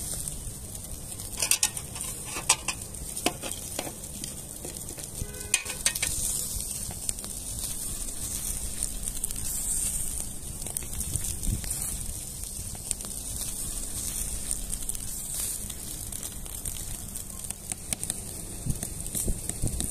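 Skewers of lamb chenjeh kebab with lamb-tail fat sizzling over glowing charcoal: a steady, high hiss. A few sharp clicks come between about one and six seconds in.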